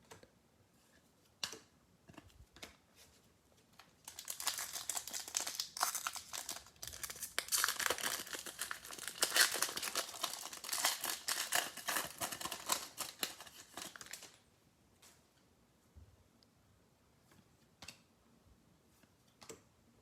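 Wrapper of a baseball card pack being torn open and crinkled for about ten seconds, starting about four seconds in, with a few faint clicks before and after.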